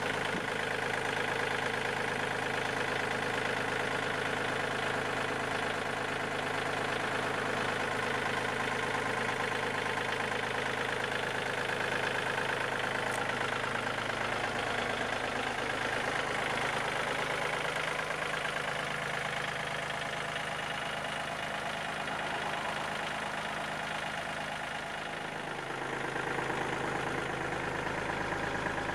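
Yanmar CT226 crawler tractor's diesel engine idling steadily, with a slight dip in level near the end.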